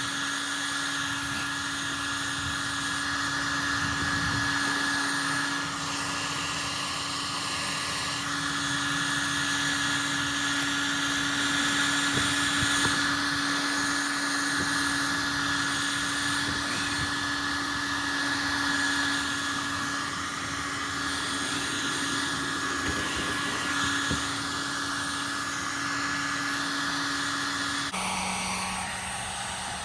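Handheld electric heat gun running steadily, a fan hum with a rush of hot air, warming the vinyl overlay to seal it onto the emblem. Near the end its hum drops to a lower note.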